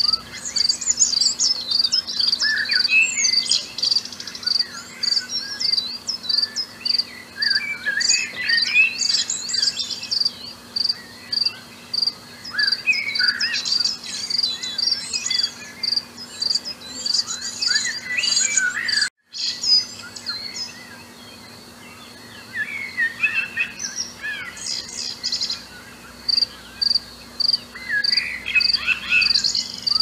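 Parrots chirping and twittering in scattered bursts of quick, high calls, over steady cricket chirping pulsing about three times a second. The audio drops out for an instant about two-thirds of the way through.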